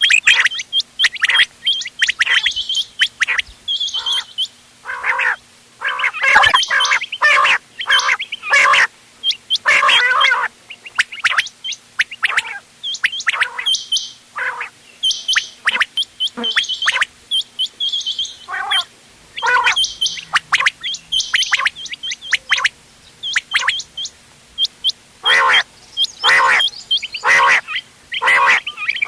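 Several quails calling at once: short, sharp calls repeated over and over, overlapping irregularly with hardly a gap.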